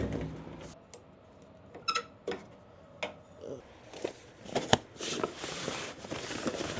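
Someone paying at a vending machine: a few sharp separate clicks and knocks, like coins and buttons, then a busier clatter near the end.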